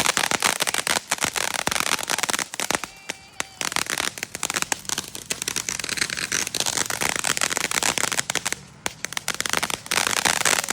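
Fireworks crackling: a dense, rapid string of small sharp pops and cracks that thins out briefly about three seconds in and again near nine seconds.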